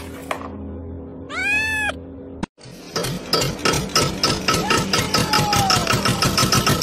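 A cat meows once, a short call that rises and falls, about a second and a half in. From about three seconds in, a louder, fast, even pulsing sound runs on at several pulses a second.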